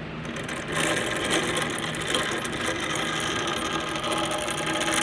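Grandfather clock movement's gears and ratchet clicking rapidly and steadily, starting about a second in.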